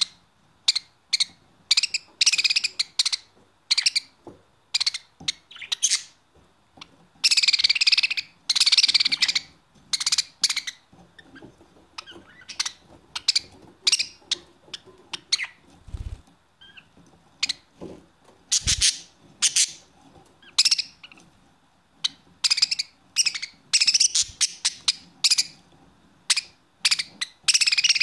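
Budgerigars chirping and chattering: a steady run of short, sharp chirps, with busier stretches of warbling about seven to ten seconds in and again near the end.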